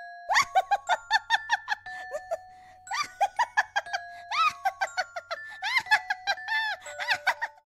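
A cartoon character's high-pitched giggling, in quick runs of short laughs, over background music with held notes.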